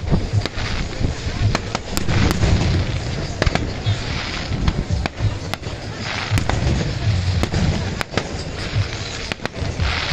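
Fireworks display: a rapid run of cracks and booms, some overlapping, over a continuous low rumble.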